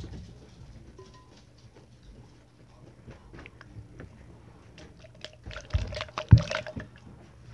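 Popcorn being chewed and picked from a glass bowl, with small scattered crunches and rustles. About five and a half seconds in comes a brief burst of loud knocks and rattling close to the microphone.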